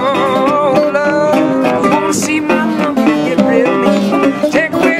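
Metal-bodied resonator guitar fingerpicked solo, a ragtime tune of quick plucked notes over a steady bass, with a wavering note about half a second in.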